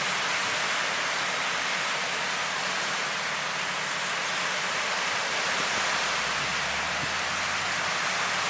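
Ocean surf washing steadily onto a beach, an even rushing hiss with no single breaker standing out. A low rumble joins about two-thirds of the way in.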